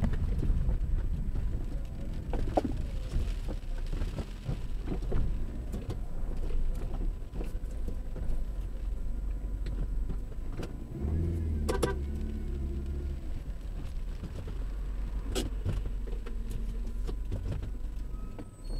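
Car driving in heavy rain, heard from inside the cabin: a steady low rumble of engine and wet road, with scattered ticks and taps over it and a couple of sharper clicks in the second half.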